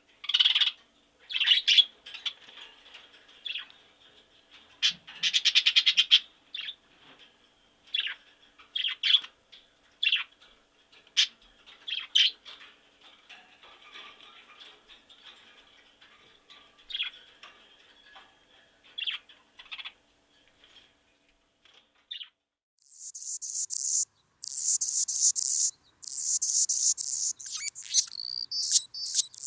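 Short, high animal chirps repeated every second or so, one of them a fast rattling trill about five seconds in. From about twenty-three seconds a dense, very high buzzing chorus takes over, like insects.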